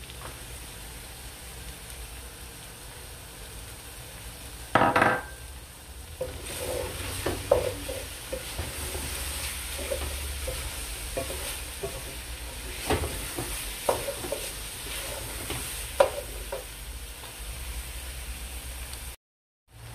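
Mutton mince with carrots frying in an aluminium pot with a steady sizzle, while a wooden spatula stirs it and knocks against the pot's sides in short irregular taps from about six seconds in. A single louder clatter comes a little before the stirring starts.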